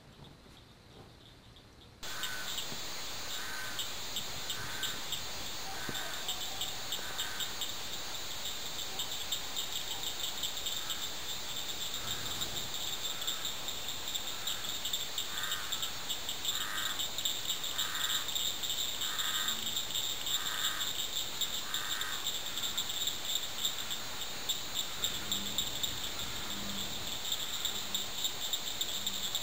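Dusk chorus of crickets and other insects: a steady high-pitched trilling that starts abruptly about two seconds in. Over it a lower call repeats about once a second through the middle, and a few deep notes come near the end.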